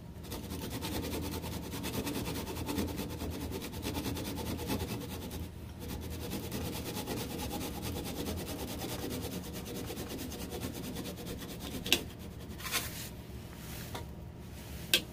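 Wood lathe running while a chisel cuts at the base of a spinning maple burl vase to part it off its tenon, a steady rubbing scrape over the lathe's hum with fine rapid ticking. Near the end come a few sharp clicks.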